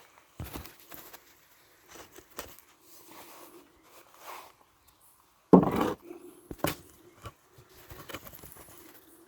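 Scattered knocks and clicks of handling, the loudest a single thump about halfway through, over a faint steady hum of honey bees.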